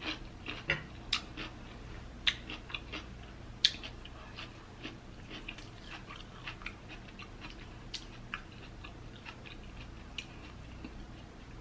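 Eating sounds: irregular wet mouth clicks and smacks of chewing chicken, mixed with fingers pulling apart rotisserie chicken meat.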